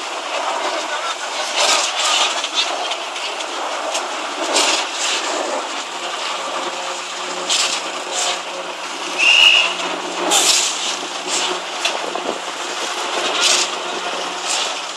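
Concrete pour: a boom concrete pump pushing concrete out through its delivery hose, with irregular hissing surges over a steady machinery hum. A short high whistle sounds a little past halfway.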